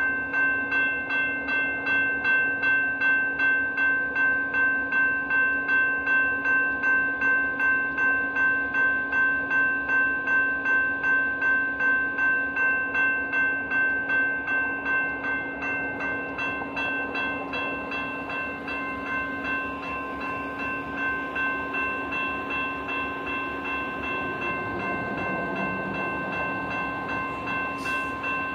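Railroad grade-crossing bell ringing steadily, about two strikes a second. A low rumble builds near the end.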